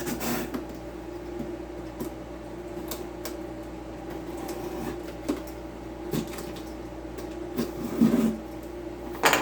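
Cardboard box of a circular saw being cut open with a utility knife and its flaps and packing handled: scattered scrapes, taps and rustles, a few louder knocks near the end, over a steady electrical hum.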